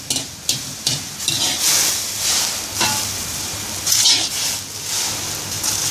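Wire-mesh skimmer scraping and clinking against a steel wok while blanched instant noodles are scooped out of the hot water, with water sloshing and running off the mesh in hissing waves.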